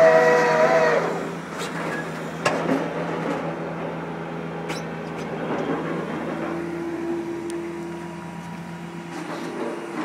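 MAIT HR130 rotary drilling rig running. A loud, high whine with several pitches stops about a second in, leaving the steady hum of the machine, a few sharp metallic knocks and a lower steady tone near the end.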